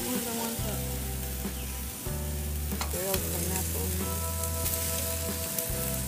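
Rib-eye steaks and pineapple rings sizzling on a hot gas grill grate, a steady hiss, with a few light clicks of metal tongs turning the food about halfway through. Low steady tones run underneath, shifting every second or two.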